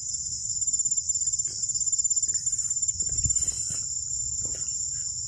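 Steady, unbroken high-pitched chorus of insects, typical of crickets, over a faint low rumble with a few light knocks.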